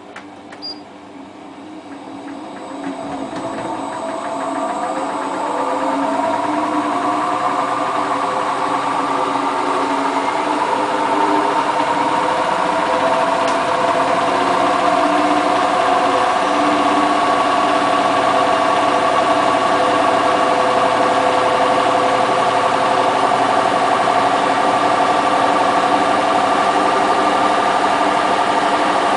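Hotpoint Ultima WT960 washing machine starting its spin: after a faint click, the motor and drum wind up, the whine rising in pitch and getting louder for about ten seconds, then running steady at full spin speed.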